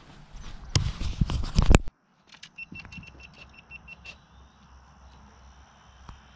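Loud rubbing and knocking of a handheld camera being handled over the water. After a cut, quiet evening lakeside ambience follows: a steady high-pitched drone, a short run of evenly spaced chirps at about five a second, and scattered faint clicks.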